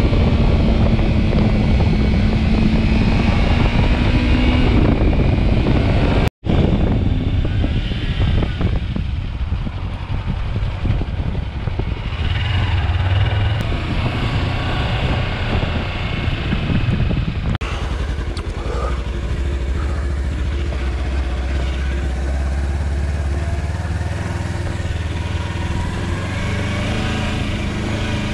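Kawasaki Versys-X 300's parallel-twin engine running as the motorcycle is ridden, with wind noise, broken by a split-second gap about six seconds in. In the last third the engine note is lower and steadier as the bike rolls slowly on gravel.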